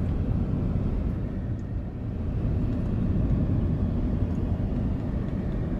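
Car road noise heard from inside the moving car: a steady low rumble of tyres and engine while driving on a highway.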